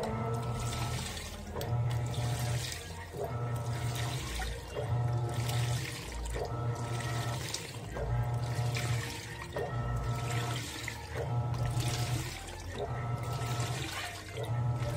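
Panasonic NA-F160B5 16 kg washing machine agitating a full load in water. Its motor drives the wash in strokes that reverse about every second and a half, each stroke bringing a motor hum and whine, over steady sloshing and swishing of water.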